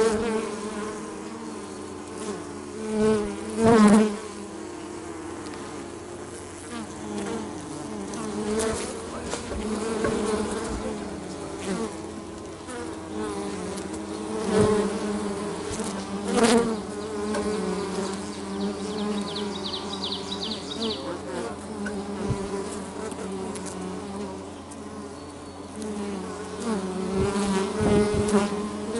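Feral honey bees buzzing at the entrance of their colony in a hollow pine tree: a steady buzzing hum that swells louder for moments several times as bees fly close past the microphone.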